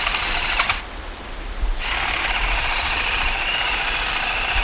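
A power tool's motor running steadily with a fast mechanical rattle. It drops away about a second in, then picks up again and runs on.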